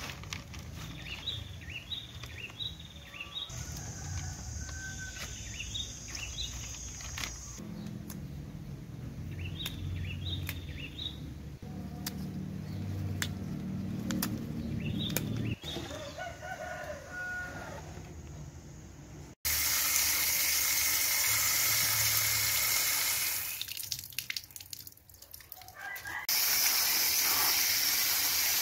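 Tap water gushing into a plastic colander of bean sprouts. It starts abruptly about two-thirds of the way through, drops off for a couple of seconds, then runs again. Before that there are short repeated bird chirps and soft handling noises.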